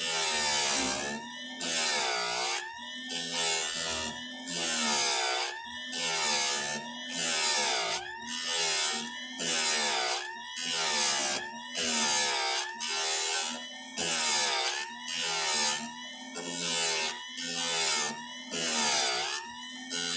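Chainsaw chain cutter teeth being sharpened: repeated scraping strokes of metal on metal, about one a second, each lasting around half a second.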